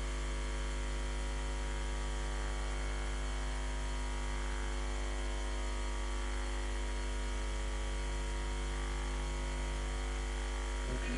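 Steady electrical mains hum with hiss, unchanging, cutting off abruptly with a short click near the end.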